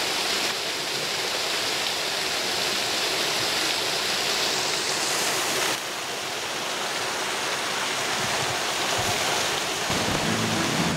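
Small woodland brook spilling over a rocky ledge into a pool: a steady rush of falling water, its tone shifting slightly about six seconds in. Music starts near the end.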